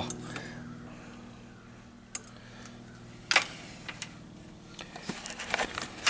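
Handling noises at a workbench over a faint low hum: a light click about two seconds in, a sharper knock a little after three seconds, then a run of small clicks and rustling near the end as a grey cloth is handled close to the microphone.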